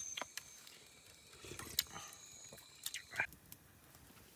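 Light scattered clicks and taps of a metal spoon against a split bamboo tube, over a faint steady high-pitched hum.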